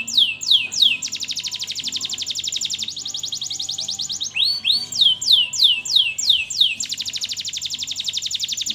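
Domestic canary singing: runs of downward-slurred whistled notes, about three a second, alternating with very fast rolling trills. A trill starts about a second in, and again near the end.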